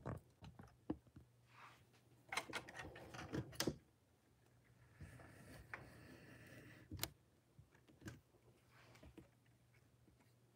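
Faint handling noise at a craft table: scattered clicks and knocks, a short stretch of rustling and knocking a couple of seconds in, and a sharp click about seven seconds in, over a low steady hum.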